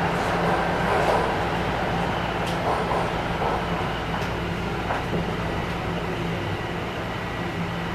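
Toronto Rocket subway car running into a station, heard from inside the car: a steady rumble of wheels and running gear with a low steady hum, slowly getting quieter as the train slows.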